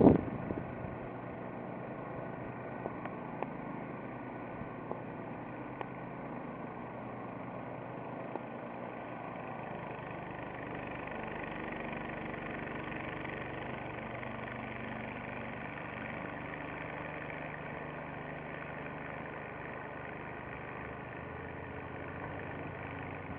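A steady engine-like hum that does not change in pitch or level.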